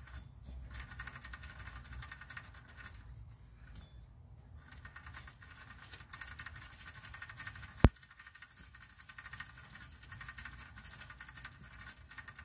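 Worn rear wheel bearing on a 2006 Mazda 3 hub, turned by hand, making a fast run of fine scratchy ticking that stops briefly a few times; the noise is the sign of a bad bearing. One sharp click sounds about eight seconds in.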